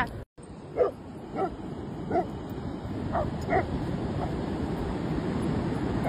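A dog barking: five short barks in the first few seconds, over the steady rush of surf.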